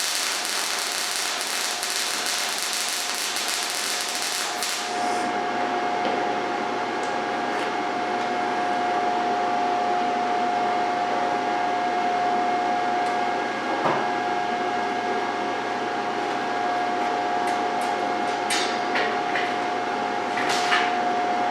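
MIG welder arc crackling and sputtering for about the first five seconds, as a practice bead is laid with a cheap flux-free gas-shielded MIG welder. Then the arc stops, and a steady whirring hum with a clear high tone carries on, with a few light clicks.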